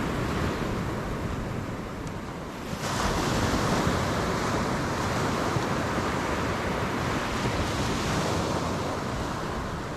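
Surf breaking and washing up the beach, a steady rushing noise that swells louder about three seconds in, with wind on the microphone.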